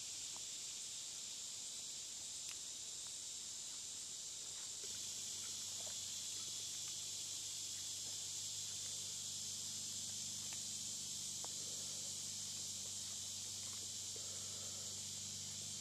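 Knife with a carbon-steel blade slicing ham and then a tomato on a wooden board, with a few faint taps of the blade on the wood, over a steady high insect drone. A low steady hum comes in about five seconds in.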